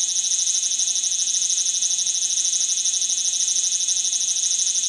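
Recorded call of a large brown cicada (aburazemi) played back by a children's educational toy: a steady, high, dense buzz with a fast flutter.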